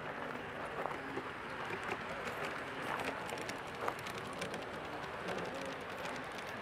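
G-scale model tank cars rolling along garden track, their wheels clicking irregularly on the rails over a steady rolling noise.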